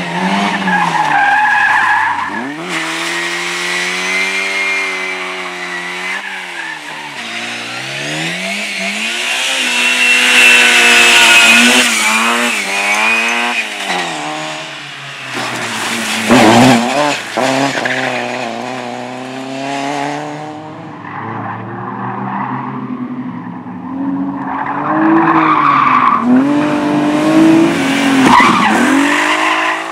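Race car engine driven hard, its pitch climbing and dropping repeatedly through gear changes, with tyres squealing. The squeal is loudest about a third of the way in, and a sharp loud crack comes a little past the middle.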